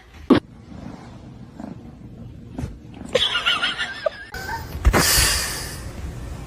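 A cat's short, wavering high-pitched call about three seconds in, after a sharp knock near the start; rustling noise follows.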